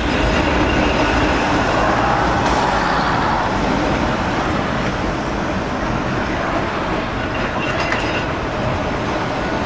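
Blackpool 'Boat' open-top tram running steadily along the tramway, heard from its open deck: a continuous rumble of the moving tramcar mixed with wind on the microphone.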